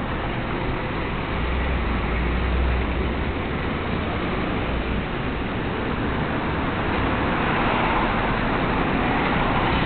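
Road traffic: cars driving past on a city street. A steady tyre-and-engine noise swells twice, with a low rumble about two seconds in and a louder passing rush near the end.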